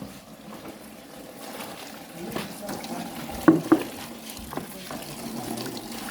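Water being poured and splashing into a container, with a couple of sharp knocks about three and a half seconds in.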